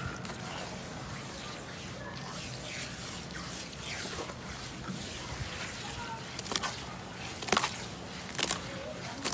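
Hands squishing and kneading wet, gritty mud in a basin: a steady soft wet squelching and sloshing, with a few sharper wet splats in the second half.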